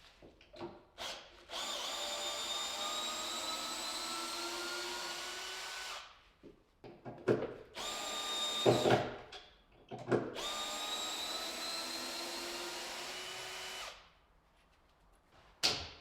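Electric drill running in two long runs of about four seconds each, with a brief run and a few knocks in between.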